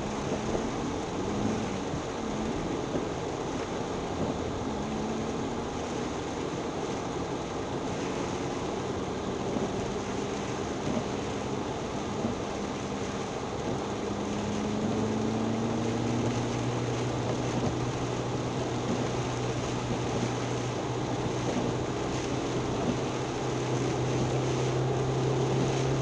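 Car driving through a hailstorm, heard from inside the cabin: a steady wash of road and storm noise under an engine hum that rises in pitch a few times and holds steadier in the second half.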